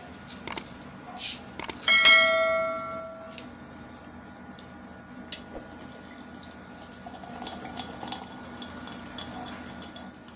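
A glass clinks once about two seconds in and rings briefly. Later, cola is poured from a glass bottle into a glass mason-jar mug, with a faint fizzing pour, and small taps and clicks come now and then.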